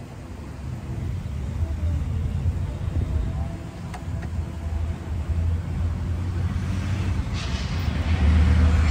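Road traffic rumble from a nearby street, with a vehicle passing louder near the end.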